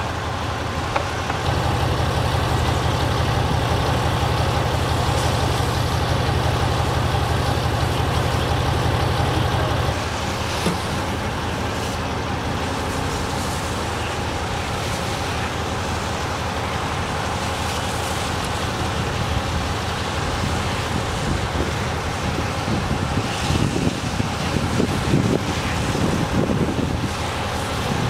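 A heavy diesel truck engine running steadily with a low hum. It is a step louder for the first ten seconds or so, and there are a few scattered knocks and clatters near the end.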